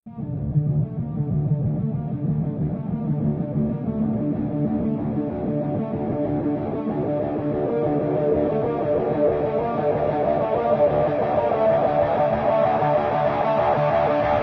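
Guitar music with a bass line, slowly getting brighter and a little louder.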